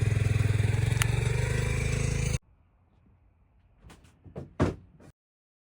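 Small vehicle engine running steadily with a rapid firing pulse, cut off abruptly a little over two seconds in. After it come a few faint knocks and one louder thump.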